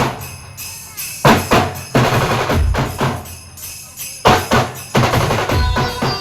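A band's drum section plays a loud percussion break: snare and bass drum strikes land in short clusters, with brief gaps between them.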